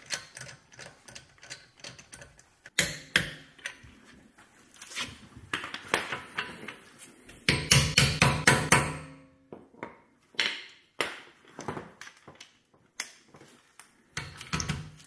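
A hammer knocks an impact socket down over a swollen stainless-capped lug nut, metal on metal. Single clinks and knocks are scattered through, with a quick run of ringing blows about eight seconds in.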